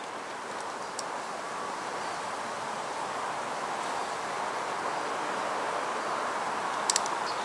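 Honeybees humming from an open hive as brood frames are lifted and checked, with a few sharp clicks of frames being handled.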